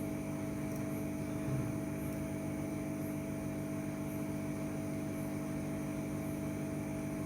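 Steady electrical hum with a few fixed tones under an even, fan-like hiss, unchanging throughout.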